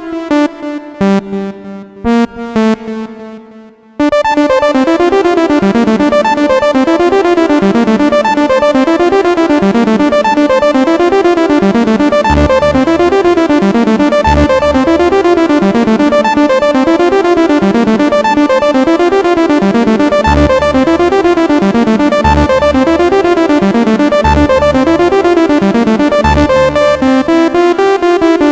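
Korg Minilogue XD four-voice analog polyphonic synthesizer playing: a few short separate chords, then about four seconds in a continuous arpeggiated sequence that repeats a rising-and-falling figure, with bass notes joining about twelve seconds in.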